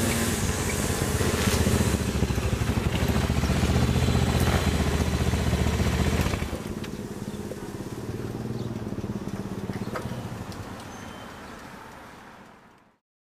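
Motorcycle engine running as the bike rides up the street. About halfway through the sound drops to a lower level, then fades out to silence near the end.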